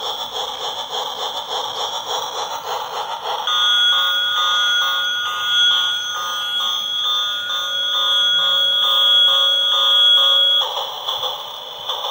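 Battery-powered toy train's electronic sound chip playing beeping, alarm-like effects through its small speaker. A fast repeating electronic pattern gives way about three and a half seconds in to a shriller, steady beeping tune that pulses about three times a second, and the first pattern comes back near the end.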